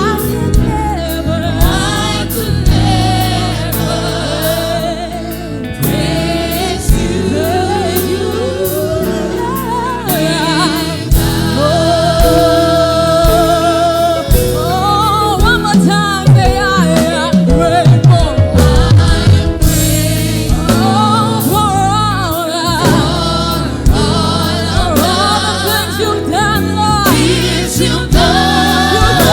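Gospel choir singing a song with wavering, ornamented melody lines over steady bass notes and a band's beat.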